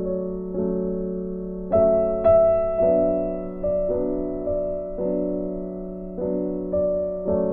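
Background music of slow keyboard chords, each struck and then fading, about one a second.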